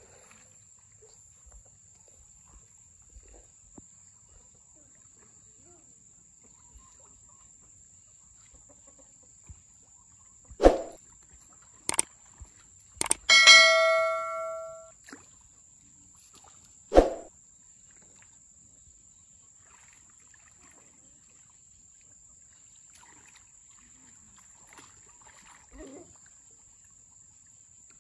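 Subscribe-button sound effect: a couple of mouse clicks followed by a bright bell-like ding that rings and fades over a second or so, with a short knock a few seconds before and after it.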